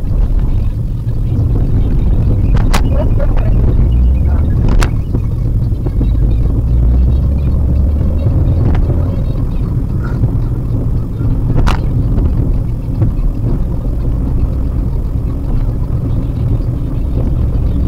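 Steady low rumble of road and engine noise inside a Maruti Suzuki WagonR's cabin while it drives along a highway, with three brief sharp clicks or knocks.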